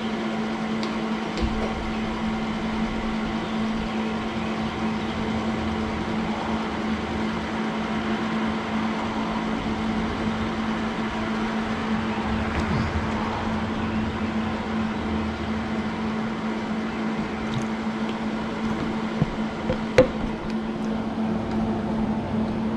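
Steady electrical hum with a strong low tone, from a Millermatic 130 MIG welder switched on and idling with its cooling fan running, powered up again after a replaced contactor. A couple of sharp clicks come near the end.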